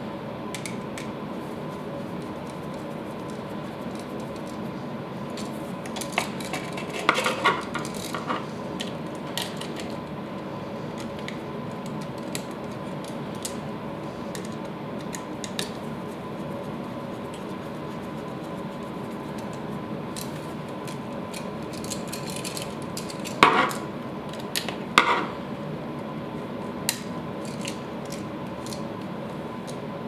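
Small metallic clicks and clinks of a screwdriver and wires against a duplex electrical receptacle as its terminal screws are worked to hook up the wires. The louder clinks come in two clusters, about a quarter of the way in and again about three quarters in, over a steady hum.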